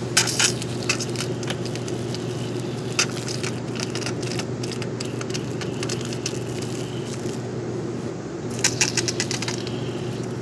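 Garden-hose spray nozzle spraying a thin, low-pressure stream of water onto grass, a hiss with short clattery clicks near the start, around three seconds in and again near the end. A steady low hum runs underneath.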